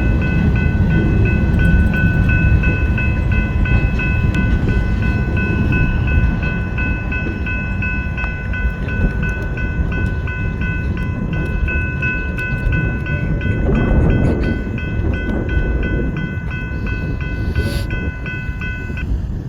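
Freight train rolling past with a loud, steady rumble, over a high steady ringing tone that pulses a few times a second and cuts off near the end.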